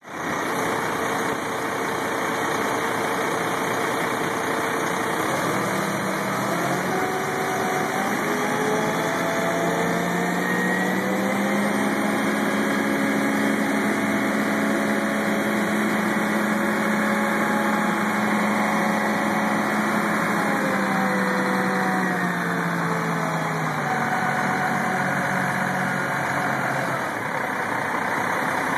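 Truck-mounted crane's engine running, its speed rising over several seconds to a steady higher pitch, holding there for about ten seconds, then falling back toward idle near the end, as the engine is throttled up to drive the crane during the lift.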